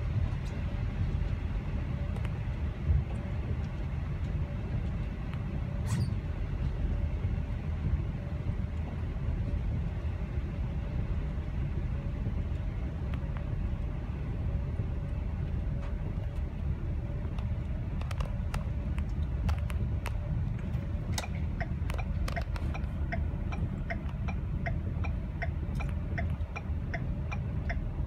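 Steady low rumble of a car moving in slow traffic on a wet road, heard from inside the cabin. Past the middle, clicking starts and settles into an even ticking about two a second, like a car's turn-signal indicator.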